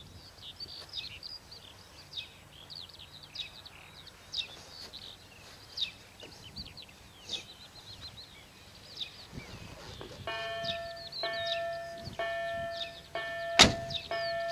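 Electronic bell of an automatic level-crossing signal (Bombardier EDE-1) starting up about ten seconds in. It sounds a repeated electronic ding about once a second, the crossing's warning that a train is approaching. Small bird chirps run throughout, and a single sharp knock comes shortly before the end.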